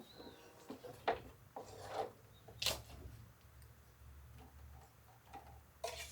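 A serving utensil scraping and knocking against a pan while cooked vegetable stir-fry is scooped out. It comes as a few separate short scrapes and clunks over a low steady hum.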